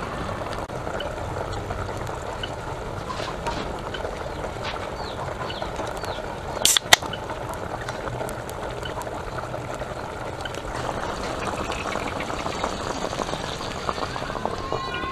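Liquid poured in a steady trickle into a stainless steel pot over a whole chicken, with scattered small splashes. About seven seconds in there is a short, sharp pop and hiss as a can of ABC stout is opened.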